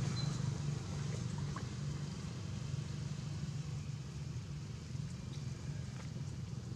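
A steady low engine hum, like a motor vehicle idling, runs under a few faint ticks.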